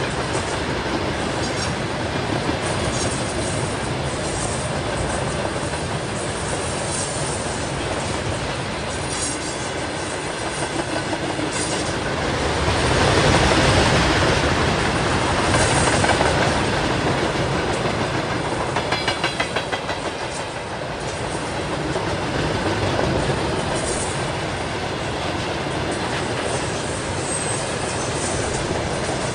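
A long freight-style train of many wagons rolling past close by: a steady rumble and rattle of wheels on rail, with clickety-clack over the rail joints and swells in loudness about halfway through. A quick run of rhythmic wheel clacks comes about two-thirds of the way in.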